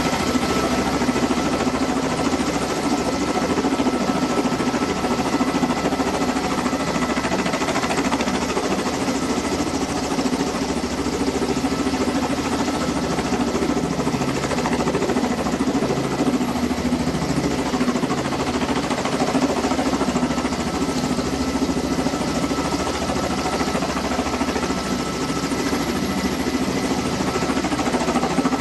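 Kamov Ka-32A11BC coaxial-rotor helicopter hovering overhead: the steady, unbroken noise of its rotors and twin turbine engines, with a thin constant whine riding on top.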